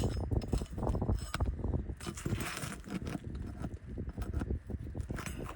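Irregular knocks, clatter and scraping of hand work on asphalt roof shingles as the shingle nails are worked loose, with a longer scrape about two to three seconds in.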